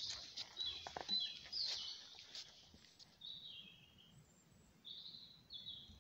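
Songbirds chirping in short high phrases, two clear ones near the middle and end, with footsteps crunching on dry leaf litter over the first two seconds or so.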